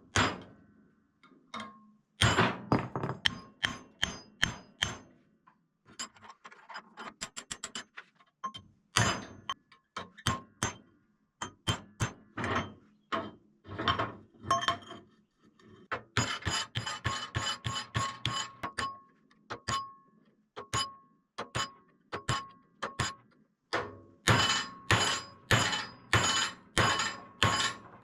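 Outro music built on percussion: a run of sharp hits in a fairly steady beat, with a few quick rolls and faint ringing tones.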